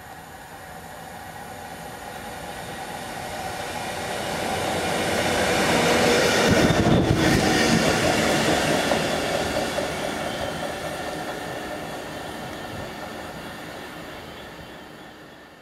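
Class 66 diesel-electric locomotive (two-stroke V12 engine) passing at speed. Engine and wheel noise build steadily to a peak about halfway through, drop in pitch as it goes by, then fade away.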